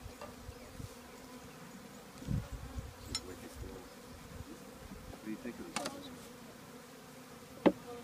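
Package of honeybees humming steadily in its screened wooden box, with a few sharp clicks as pliers pull staples from the package's wooden cover; the loudest click comes near the end.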